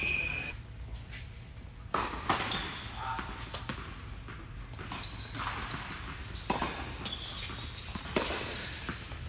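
Tennis ball bouncing on an indoor hard court: about five separate thuds, a second or more apart, each ringing on in the large hall.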